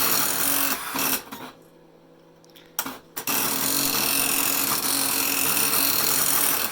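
Radio Shack TRS-80 Daisy Wheel Printer II printing its self-test pattern: a fast, dense clatter of the print hammer striking the daisy wheel. It stops for about a second and a half a little after a second in, leaving only a low hum, then starts again about three seconds in.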